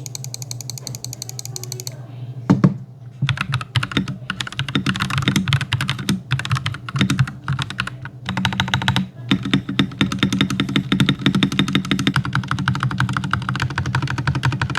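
Fast typing on an Akko 5087B Plus TKL mechanical keyboard fitted with Akko CS Silver linear switches, a dense run of key strokes with one heavier thump about two and a half seconds in. The typing sound is one the reviewer feels could still be improved by lubing the switches and stabilizers and adding dampening mods.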